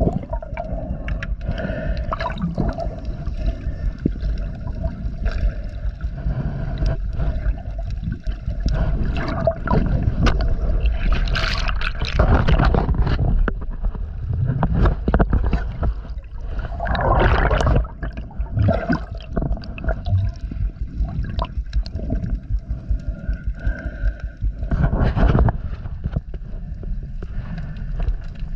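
Underwater water noise heard through a chest-mounted GoPro's waterproof housing as a snorkeler dives: muffled gurgling and rushing water with a low rumble and frequent sharp clicks. Two louder rushes come about a third of the way through and a little past halfway.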